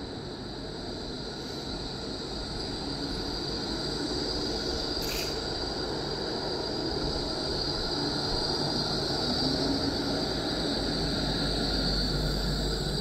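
A Melbourne E-class tram rolling slowly past close by, its wheels rumbling on the rails and growing louder as it draws level, over a steady high whine. A short sharp chirp sounds about five seconds in.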